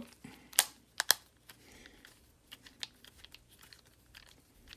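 Small screwdriver driving a screw into the clear plastic battery box of a toy lightsaber room light: light clicks and ticks of metal on plastic, with three sharper clicks within the first second or so.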